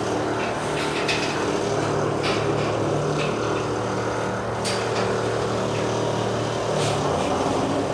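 Heavy recovery truck's diesel engine running steadily as the truck creeps up onto a steel wash ramp, with a few short clicks or hisses over it.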